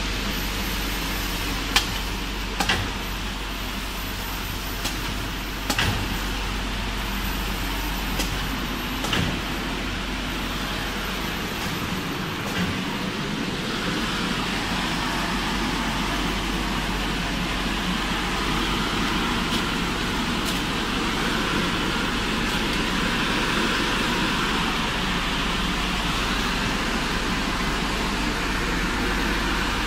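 Smipack FP6000E automatic shrink-wrapping machine running: a steady mechanical noise with several sharp clacks in the first ten seconds or so.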